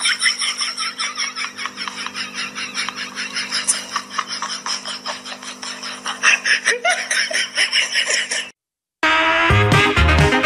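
Rapid, continuous laughter, a fast run of short ha-ha pulses over a low steady hum, cutting off sharply about eight and a half seconds in. After a brief silence, background music with a steady beat starts near the end.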